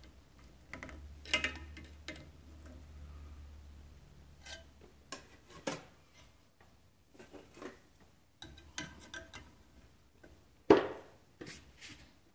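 Metal workpiece and tools being handled during a destructive test of spot-welded aluminium sheets: scattered clicks and knocks, a low steady hum for a few seconds, and one sharp knock near the end.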